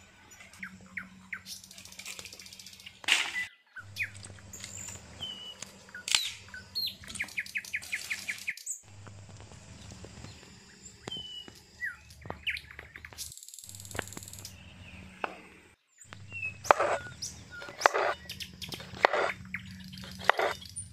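Birds chirping over a low steady hum. Near the end, a series of sharp knocks as a knife chops through cucumber onto a wooden cutting board.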